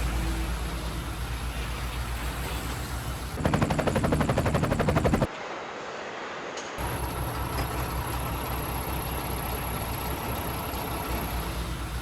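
Steady hum of assembly-plant machinery. About three and a half seconds in comes a loud burst of rapid mechanical rattling, about fifteen strokes a second, that stops abruptly after about two seconds.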